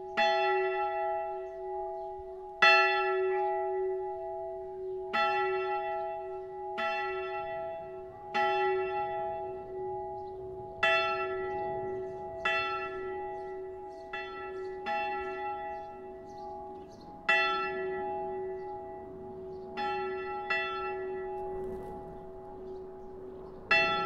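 A single swinging church bell ringing the pre-ringing (Vorläuten) half an hour before a service. The clapper strikes about a dozen times at uneven intervals of roughly one and a half to two and a half seconds, and each stroke's hum carries on into the next.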